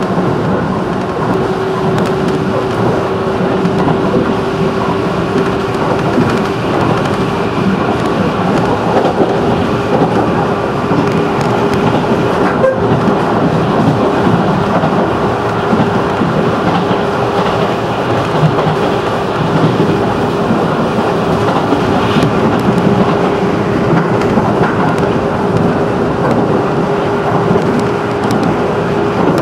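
JR 211 series electric train running, heard from inside the passenger car: a steady rumble of wheels on rail with a steady, even whine held throughout.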